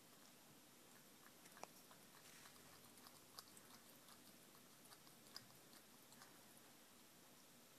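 A Himalayan cat chewing its food: faint, irregular small clicks over quiet room hiss.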